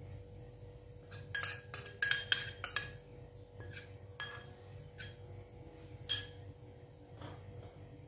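A spoon clinking against a white ceramic bowl while charmoula marinade is scraped out over a tagine: a quick run of sharp, briefly ringing clinks about a second in, then a few single clinks spaced out toward the end.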